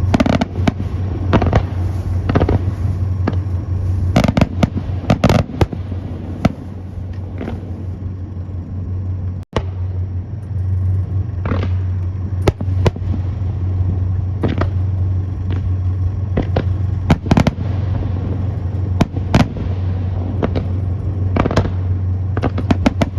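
Fireworks display: aerial shells bursting in repeated sharp bangs at irregular spacing, sometimes several in quick succession, over a steady low hum.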